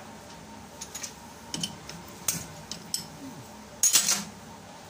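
Light metal clinks and taps from hands working fittings and pipe unions on a diesel rotary injection pump on a test bench: a few scattered clicks, then a louder cluster of knocks about four seconds in.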